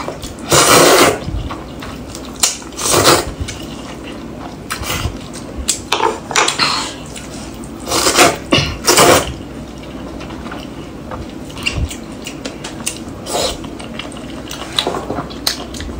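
A person slurping hot and sour glass noodles (suanlafen) in wet bursts, about five times, the loudest near the start and around the middle, with chewing and a few light chopstick clicks against the bowl between them.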